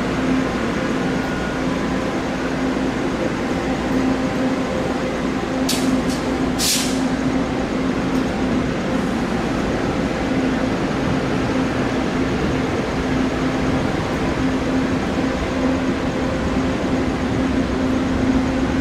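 Taiwan Railways passenger cars rolling slowly past on the rails, with a steady hum underneath the running noise. Two short hisses of air come about six and seven seconds in.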